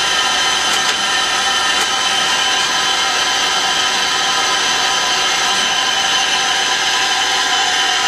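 Citizen L20VII CNC Swiss-type lathe running a program dry, with no coolant: a steady, many-toned whine from its spindle and drives.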